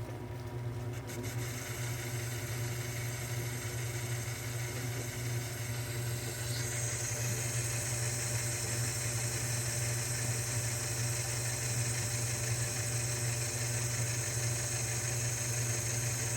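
1938 South Bend 9 lathe running under power while a carbide tool takes a roughing pass on 416 stainless steel bar. Over a steady hum, a high hiss of cutting comes in about a second in and grows stronger about halfway through.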